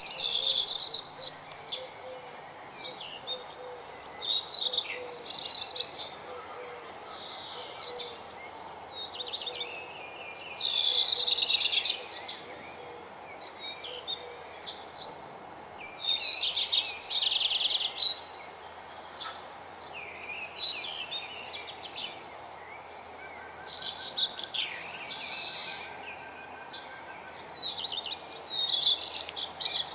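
Songbirds singing, short phrases of rapid high notes coming every few seconds over a steady background hiss.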